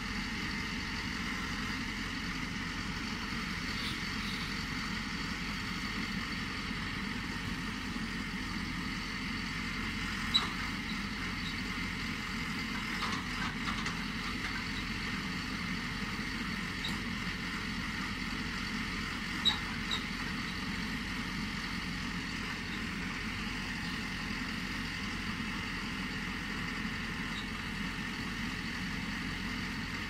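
An engine running steadily, with two sharp clicks, about ten and about twenty seconds in.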